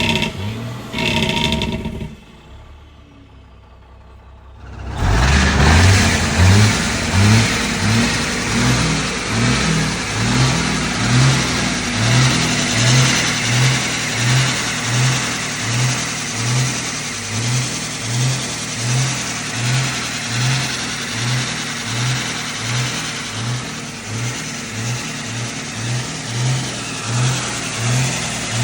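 Truck engine running with an even, pulsing throb; it starts loud about five seconds in after a short quieter gap.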